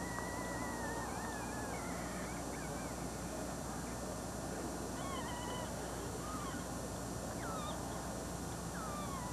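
Animal calls, a series of wavering, gliding cries over a steady low background hum.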